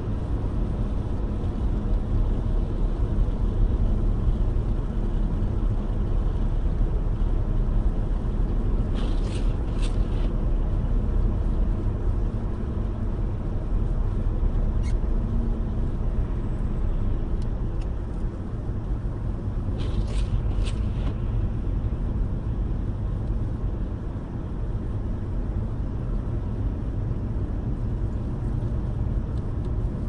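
Steady low rumble of a car's tyres and running gear on a snow-covered motorway, heard from inside the cabin. Brief clusters of clicks come about every ten seconds.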